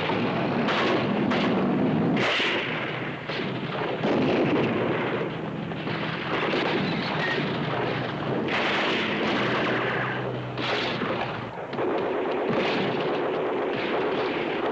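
Gunfire: repeated gunshots and bursts of shots over dense, continuous noise.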